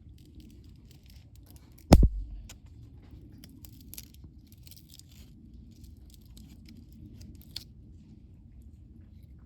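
Wood fire burning with a low steady rumble and scattered small crackles and pops. A single loud thump about two seconds in.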